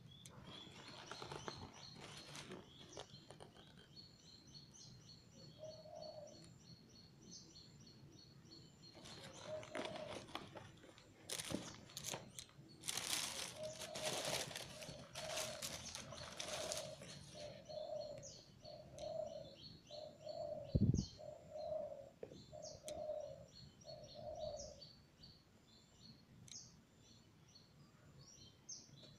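Paper and plastic wrapping rustling as a shoe parcel and shoebox are unwrapped, loudest in the middle stretch, with a single thump later on. Small birds chirp throughout, and a low bird call repeats about ten times in the second half.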